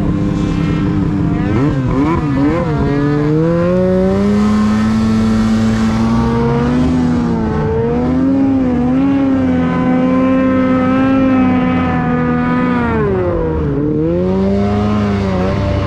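Two-stroke mountain snowmobile engine under throttle while riding through snow. The engine is blipped a few times about two seconds in, then climbs and holds at high revs. Near the end it drops off sharply and revs back up.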